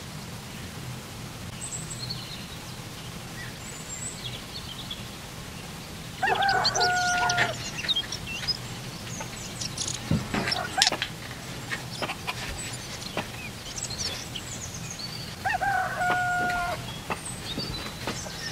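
A rooster crowing twice, about six and about fifteen seconds in, each crow a bit over a second long and ending on a held note, with small birds chirping faintly. A few sharp clicks around ten to eleven seconds in, the loudest sounds here, from a small tube cutter being handled.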